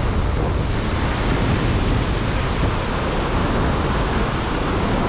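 Surf washing through shallow water, with wind buffeting the microphone. A steady rushing noise with a low rumble underneath, even throughout.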